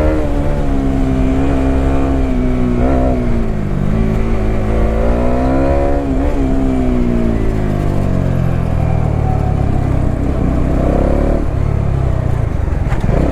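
Bajaj Dominar 400's single-cylinder engine running under the rider, its pitch rising and falling as it accelerates and eases off in traffic, with sharp drops about four and six seconds in. In the second half it settles lower and rougher.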